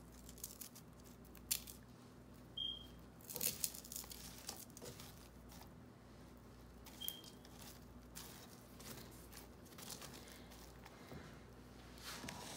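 Fingers crushing pieces of roasted makhana (fox nuts) in a dry, crumbly ladoo mixture in a pan: scattered faint crunches and crackles, the loudest about three and a half seconds in.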